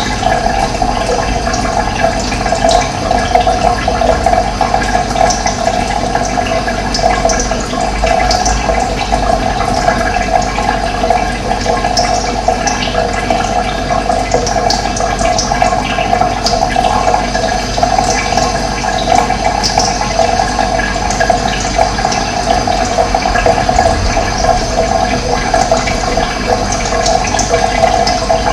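Running water rushing steadily, a continuous full splashing flow without let-up.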